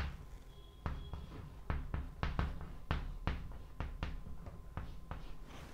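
Chalk writing on a blackboard: a string of irregular light taps and short strokes as letters are written, starting about a second in.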